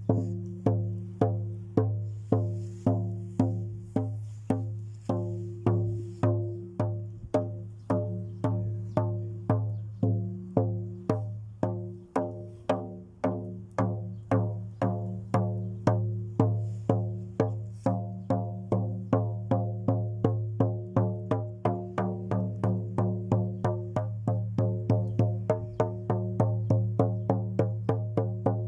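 Music: a steady beat of low, ringing struck notes, about two a second, getting slightly faster near the end.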